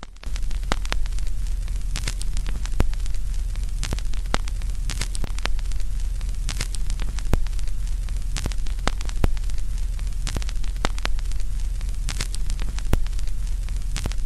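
Steady static hiss over a strong low hum, scattered with sharp crackles and pops at irregular intervals.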